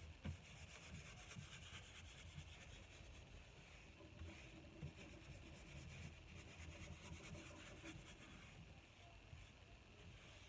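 Faint, continuous rubbing of a varnish brush's bristles scrubbing wet Gamvar gloss varnish into the surface of an oil painting.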